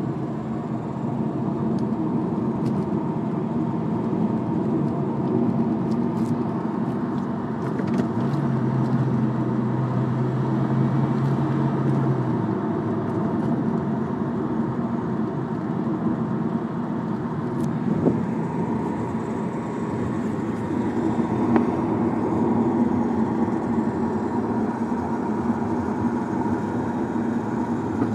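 2005 Acura RSX Type-S being driven, its engine and road noise steady, with a rattle from the left front that goes away with the clutch in or in neutral, which the owner takes for drivetrain-related. A low steady hum comes in for about four seconds a third of the way through.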